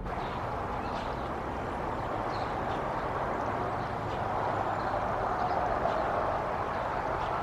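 Steady rushing outdoor background noise, swelling a little after the middle, with faint short high chirps scattered through it.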